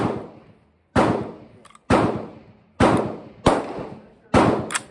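Gunshots on a covered shooting range, six in about five seconds at roughly one a second. Each is a sharp crack followed by a fading echo under the roof.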